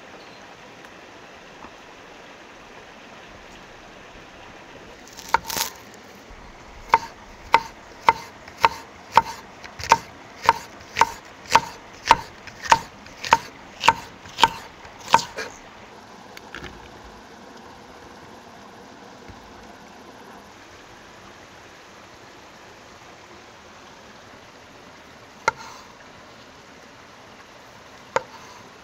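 Kitchen knife slicing an onion on a wooden cutting board, a run of about seventeen even chops at roughly two a second lasting some ten seconds. Near the end come two single knife cuts into the board as a tomato is halved.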